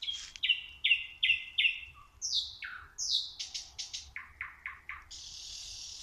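Nightingale singing its night song: a phrase of four repeated notes, then a falling whistle, a run of quick clicks and a few lower notes, ending in a harsh buzzing rattle near the end.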